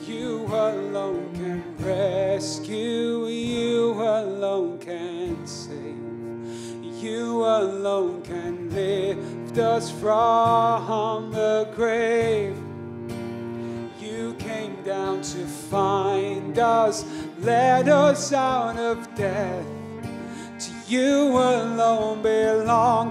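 Man singing a worship song, accompanied by a strummed acoustic guitar and sustained bowed cello notes.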